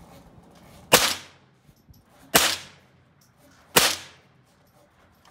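Tippmann M4-22 .22 LR semi-automatic rifle fired three times, evenly spaced about a second and a half apart, each shot sharp with a short ringing tail.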